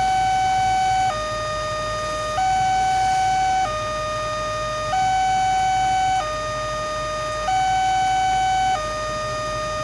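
Railway level-crossing warning alarm sounding an electronic two-tone, high then low, each tone held about a second and a quarter, repeating steadily. It warns that a train is approaching while the barrier is down.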